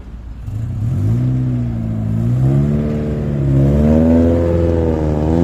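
Car engine revving, its pitch rising and falling a few times as the throttle is blipped and eased.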